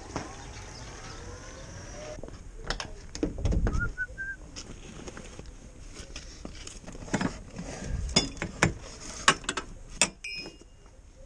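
Footsteps and a run of knocks and clicks as the cab door of a 1993 Iveco Turbo Daily is opened and tie-down straps are pulled out of the footwell and handled. The sharpest clicks come in the last few seconds.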